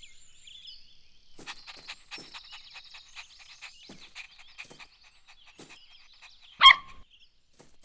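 Cartoon puppy giving one short, loud bark about two-thirds of the way through, over faint high chirping and clicking.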